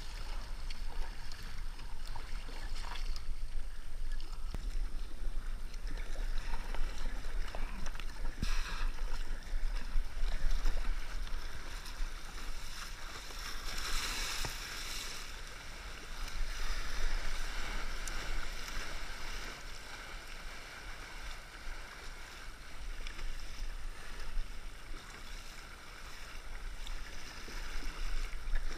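Kayak being paddled at sea: paddle strokes and water rushing along the hull, with a wave breaking over the deck in a big splash about halfway through.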